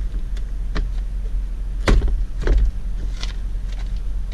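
Plastic interior door trim being handled and pressed into place on a car door: a few sharp knocks and clicks, the loudest about two seconds in and again half a second later, over a steady low hum.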